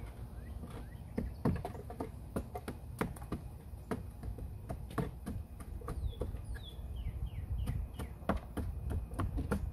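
A bird gives a quick series of short falling chirps about six seconds in, over a string of irregular sharp clicks and taps and a low rumble.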